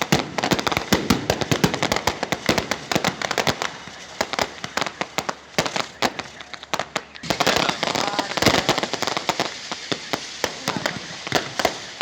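Fireworks and firecrackers going off in a rapid, irregular run of sharp bangs and crackles, with a denser burst of crackling a little past the middle.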